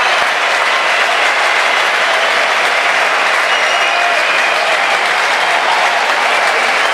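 Large concert audience applauding steadily, with a few high whistles.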